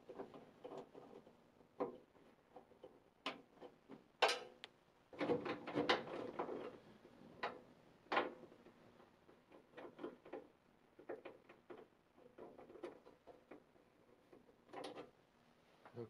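Hand tool working the bolts on a furnace's sheet-metal blower housing: scattered clicks, taps and knocks of metal on metal, with a longer scrape about five seconds in.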